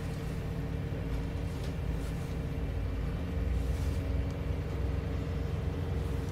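Single-deck bus heard from inside the passenger saloon while it drives along: a steady low engine and road rumble with a steady hum over it, growing a little louder about halfway through.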